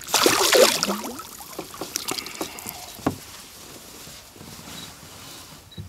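Water splashing as a fish is released over the side of a small boat and swims off, then quieter water and handling noise with a single knock against the boat about three seconds in.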